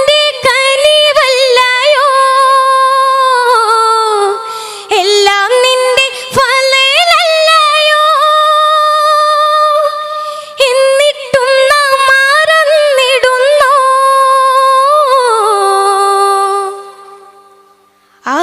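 A single voice sings a Malayalam Islamic devotional song (bhaktiganam) with no instruments heard, in long held notes with ornamented turns. Short breaks for breath come about four and a half and ten and a half seconds in, and the last note drops and fades away near the end.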